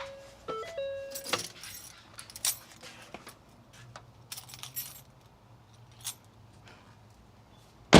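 A bunch of car keys jangling and clinking in short spurts as the key is taken out of the ignition. A few stepped electronic tones sound in the first second or so, and there is a sharp knock at the very end.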